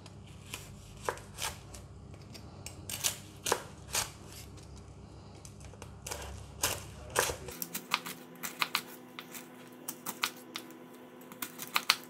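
A chef's knife crunching through the crisp crackling skin of roast pork belly and tapping the cutting board, in sharp separate crackles. They are sparse at first and come thick and fast in the last few seconds.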